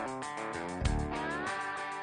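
Background music: guitar over a drum beat, with a guitar note bending upward about a second in.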